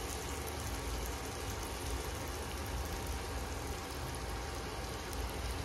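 Steady sizzling hiss, typical of food frying in a pan on the stove, with a faint low hum underneath.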